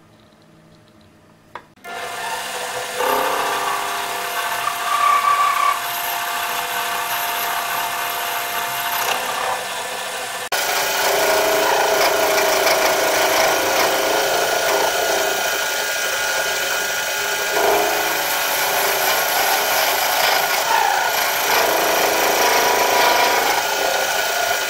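Mini lathe running while its cutting tool turns down an oiled metal workpiece: a steady scraping cutting noise with a steady whine. It starts about two seconds in and is louder from about ten seconds in.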